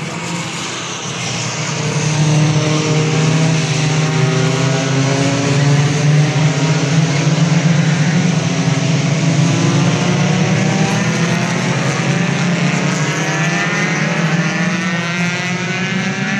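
Legends racing cars, Yamaha motorcycle-engined, running past in a bunch with overlapping engine notes rising and falling. The sound gets louder about two seconds in, then slowly fades as the pack moves off.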